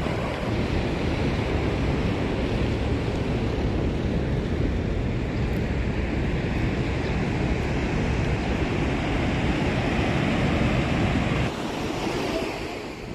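Heavy ocean surf breaking against the foot of the cliffs, mixed with wind buffeting the microphone: a steady loud rush that eases a little near the end.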